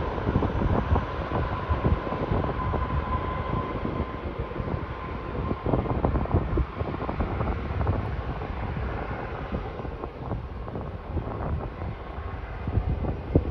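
Boeing 737 MAX 8 airliner landing: a dense, steady rumble with wind noise and many small bumps. A faint steady tone fades away about four seconds in.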